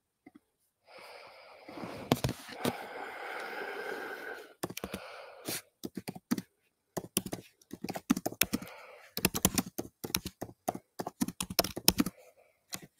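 A few seconds of rustling, then a long run of irregular sharp clicks and taps like typing on a computer keyboard.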